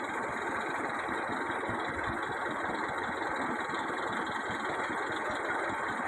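Escorts Hydra 12 mobile crane's diesel engine running steadily.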